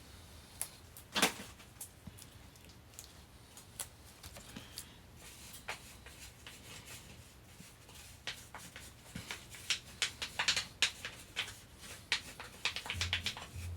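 Scattered light clicks and scratches of a brush and hand tools working over the steel parts of a Kurt milling vise. The clicks come thicker and louder from about eight seconds in, with one sharper click about a second in.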